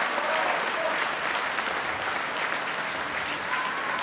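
Concert audience applauding: steady, dense clapping from many hands.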